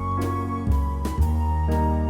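Background music: a gentle instrumental with piano, a flute-like melody and a bass line, its chords and bass notes changing about every half second.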